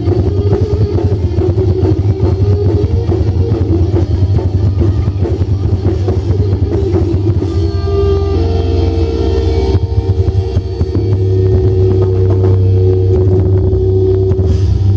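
Instrumental metalcore played live by a band: distorted electric guitars over a fast, dense drum kit. About eight seconds in, the guitars move to held, ringing chords while the drums keep going.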